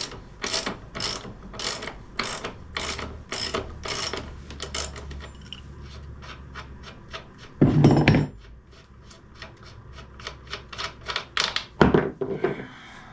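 Ratchet wrench with a 27 mm socket worked back and forth to spin off a dirt bike's rear axle nut: a clicking rasp about twice a second that quickens around the middle, with a louder clatter about eight seconds in and a few sharp knocks near the end.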